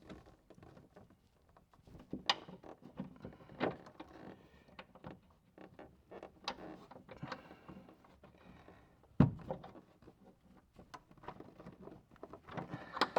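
A short screwdriver prying and turning against the metal release mechanism of a BMW Z4 E89 folding roof's hydraulic cylinder, making irregular clicks, scrapes and small knocks, with one sharp knock about nine seconds in.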